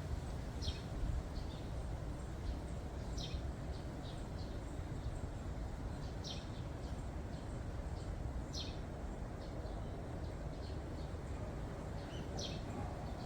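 Wind in the park as a steady low rumble on the microphone, with a small bird giving short, high, downward-sweeping chirps every few seconds and fainter calls between.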